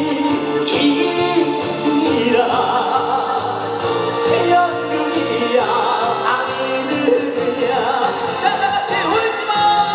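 Live trot music: singing over an amplified backing track with a steady, repeating bass line.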